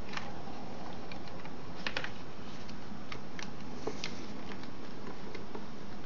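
Sheet of origami paper being folded and creased by hand on a wooden table: scattered short crackles and soft taps of the paper, loudest about two seconds in, over a steady background hiss.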